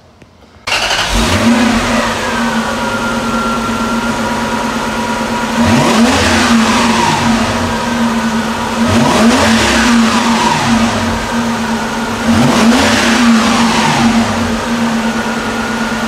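Lexus SC400's 1UZ-FE V8 engine running at idle and blipped three times, each rev climbing quickly and dropping back to idle.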